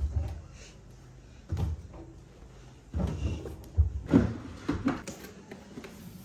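A series of dull knocks and thumps in a small room, about six in all. They come irregularly, with the loudest bunched together near the middle, like cupboards or doors being opened and shut.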